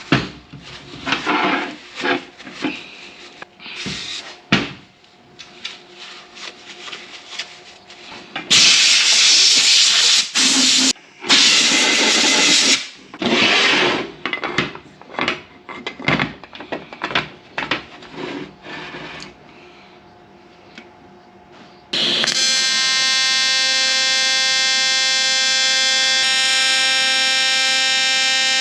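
Metalwork on an aluminium radiator: short bursts of tool noise and several seconds of loud hissing cutting noise from a cutting wheel. About two-thirds of the way in, a welding arc strikes suddenly and holds a steady, harsh buzz.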